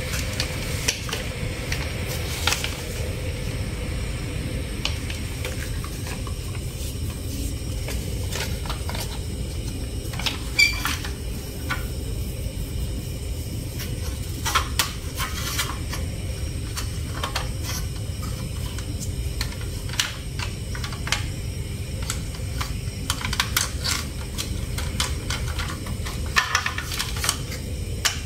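Hard plastic toy truck parts clicking and knocking as they are handled and turned over, in scattered irregular taps, with the sharpest knock about ten seconds in and a cluster near the end, over a steady low background rumble.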